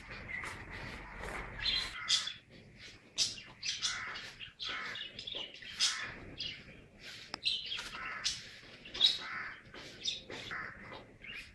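Small birds chirping: many short, high chirps in quick succession.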